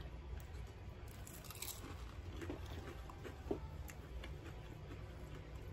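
Faint chewing of bites of chicken nugget, with small scattered mouth clicks and one slightly louder click past the middle, over a steady low room hum.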